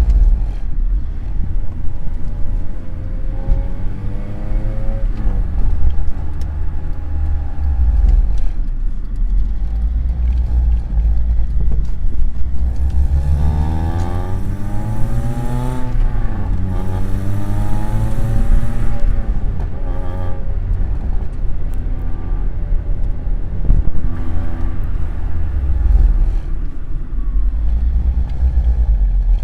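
Honda Civic Type R EP3's 2.0-litre four-cylinder i-VTEC engine revving, its pitch climbing and dropping several times over a steady low rumble.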